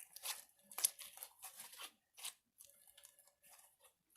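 Slime being kneaded and stretched by hand to work blue dye through it, giving an irregular run of short crackles and sticky pops, the loudest a little under a second in.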